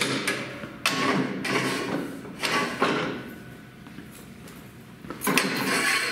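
Bent 2-inch EMT conduit being pulled out of a Greenlee 855 electric conduit bender: three metal knocks, each followed by a sliding scrape, with a faint ringing after the last one.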